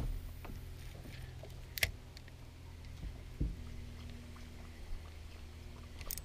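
Faint handling noise of a spinning reel being cranked to retrieve a cast inline spinner lure, over a steady low rumble, with a single sharp click about two seconds in and a low thump about a second and a half later.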